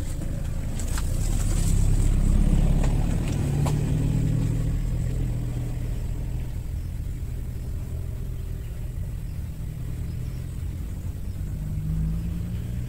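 Low engine rumble from a motor vehicle, loudest two to three seconds in, then a steadier, slightly quieter drone. A few light clicks sound in the first four seconds.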